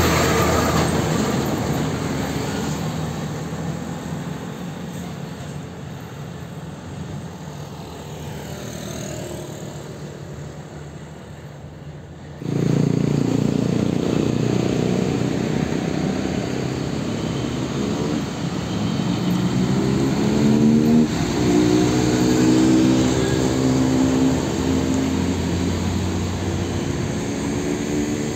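Heavy diesel engine of a MAN tractor-unit tanker truck passing close by, fading away over several seconds. After a sudden cut, another MAN tanker truck's engine runs loudly as it pulls along the road, its pitch rising and falling several times.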